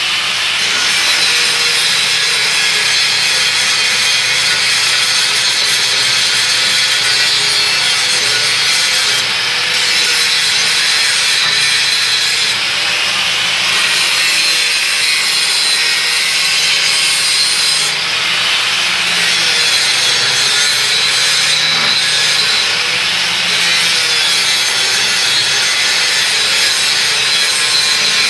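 Grinder running steadily against a steel workpiece, grinding the surface clean and smooth before welding a T-joint.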